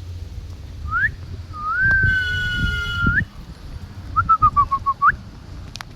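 A person whistling: a short rising note, then a long held note that flicks upward at its end, then a quick run of short falling notes finishing on a rising one.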